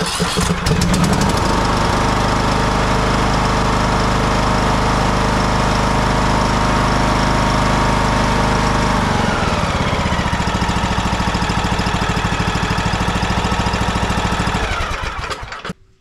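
Briggs & Stratton Intek single-cylinder riding-mower engine cranks and catches at once, then runs steadily. About nine seconds in it drops to a lower speed. Near the end it is shut off and runs down to a stop. The instant start shows that the faulty starter solenoid, now replaced, was the cause of the no-start.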